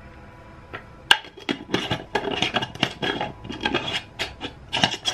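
Metal teaspoon scraping and clinking against a glass jar of red pepper flakes while measuring them out: a sharp clink about a second in, then a quick run of scrapes and taps.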